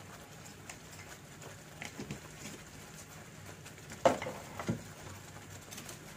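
Thick masala paste frying in a nonstick kadai, spluttering with small scattered pops over a low steady hum. A sharp knock about four seconds in and a second one half a second later, from the steel ladle or a larger spatter.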